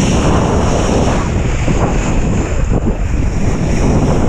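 Loud wind noise buffeting the microphone over water splashing and rushing past a kitesurfing surfboard, a steady dense rush with no distinct events.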